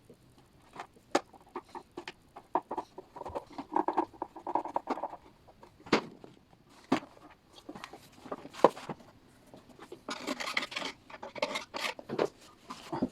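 Irregular small clicks, knocks and brief scraping of parts and tools being handled during reassembly of a kitchen food-waste disposer.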